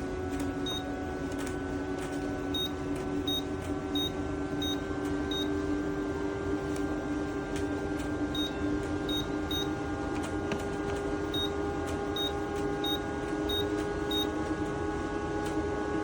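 Small USB evaporative air cooler's fan running with a steady hum and airy whoosh, while its control panel gives short high beeps in quick runs of several, about two-thirds of a second apart, as its settings are stepped.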